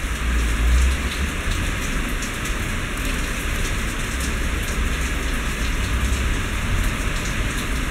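Steady rushing noise with a low rumble underneath, even throughout with no distinct knocks or changes.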